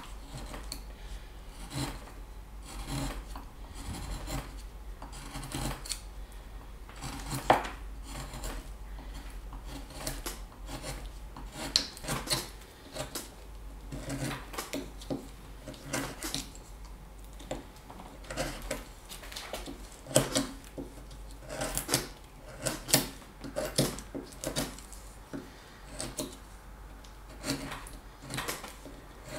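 Wood being whittled with a carving knife: many short cutting and scraping strokes at an uneven pace, a few sharper and louder than the rest.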